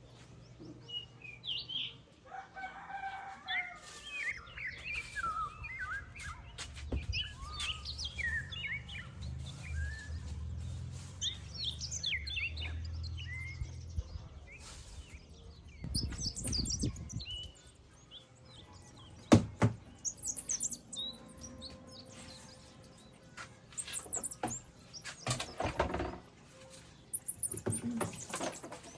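Small birds chirping, many short rising and falling calls, densest in the first half. A low rumble runs underneath for about ten seconds. In the second half come a sharp knock and a few short rustling bursts.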